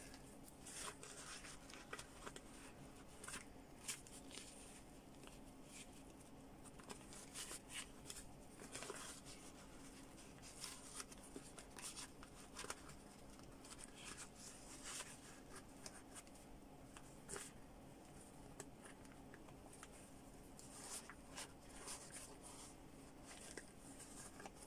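Faint rustling and scattered small clicks of a fabric sport face mask being handled as its filters are fitted back in, over a faint steady low hum.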